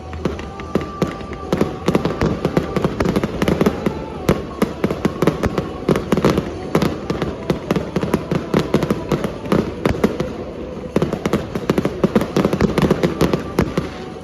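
Fireworks display, a dense, rapid crackle of many small pops and bangs that eases briefly a couple of times and then builds again.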